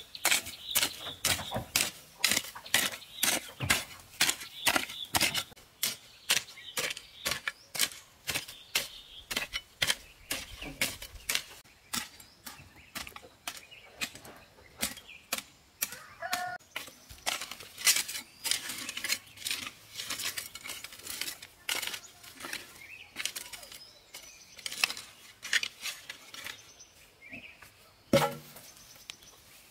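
A hand hoe chopping into dry, stony garden soil, striking about twice a second and throwing up loose earth. The strikes come less often and more softly after about halfway. A brief pitched call is heard near the end.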